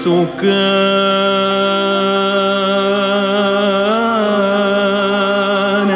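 Arabic religious nasheed: one long held note, steady in pitch, over a sustained drone, with a brief ornamental waver about four seconds in.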